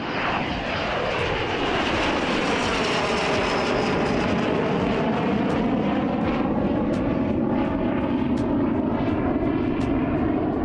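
Jet engine of the Bayraktar KIZILELMA unmanned fighter as it flies past and climbs away: a loud, steady jet noise with a whooshing that sweeps down in pitch over the first few seconds, then holds steady.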